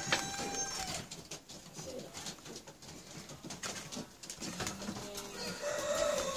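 Domestic pigeons cooing softly in a loft, with a few scattered clicks and rustles.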